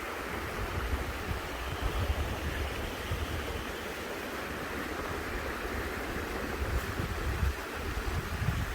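A small creek running steadily, with wind gusting on the microphone in uneven low bursts.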